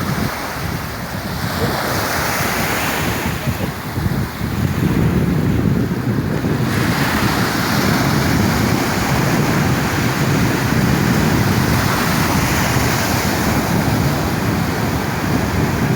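Sea waves washing onto the shore in a continuous surging rush, with wind buffeting the microphone.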